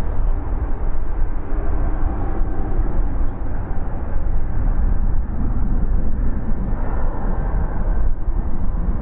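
Jet engines of a twin-engine Airbus A320-family airliner climbing away after takeoff: a steady, deep rumble with no sudden changes.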